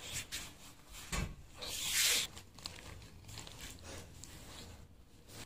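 Scuffling and cloth rustling from a person moving on the floor, with a knock about a second in and a louder rustle around two seconds in.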